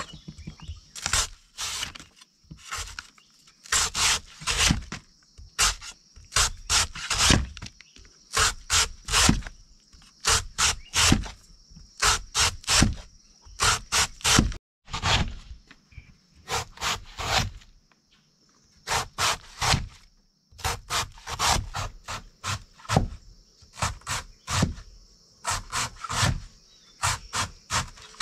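Repeated scraping strokes, often in quick pairs or short runs, with brief pauses between them. A faint steady high-pitched tone sounds underneath.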